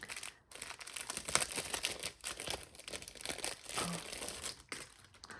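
Packaging crinkling and rustling in irregular bursts as a pack of fabric pieces is handled and opened.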